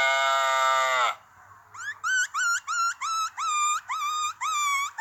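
A man imitating animal calls with his voice: a long held call that falls off and ends about a second in, then, after a brief pause, a quick run of about eight short calls, each rising sharply at its start.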